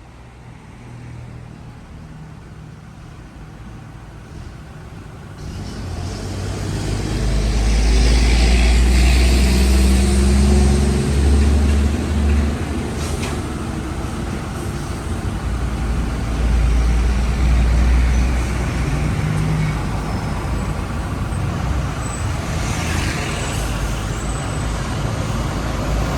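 A road vehicle running close by, growing louder over the first several seconds into a steady deep rumble.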